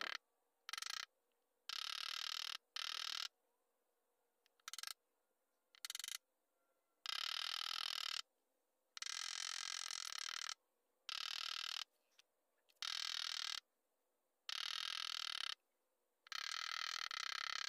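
A chrome hubcap being tapped out with a small mallet. The metal rings in about a dozen bursts, each from a fraction of a second to about a second and a half long, with short silent pauses between them.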